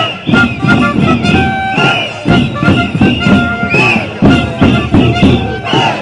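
Music in a traditional folk style, with a quick, steady beat and held melody notes over it.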